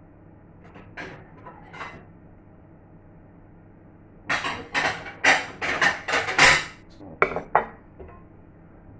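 Crockery and cutlery clattering as a plate and spoon are fetched: a couple of light clicks, then about three seconds of quick, sharp clinks and knocks about halfway through.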